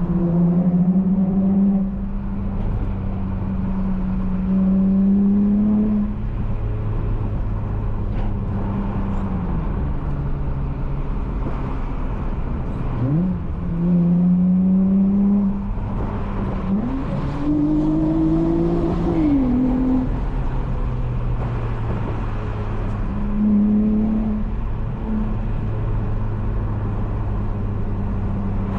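Honda J32A3 V6 engine in an Accord coupe with a loud Skunk2 single-exit exhaust and deleted resonator, heard while driving: a steady cruising drone broken by several short throttle pushes, with the pitch sweeping up sharply about halfway through and again a few seconds later.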